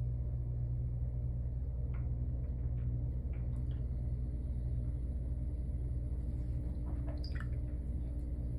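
A steady low hum, with a few faint short ticks at about two to three seconds in and again near seven seconds.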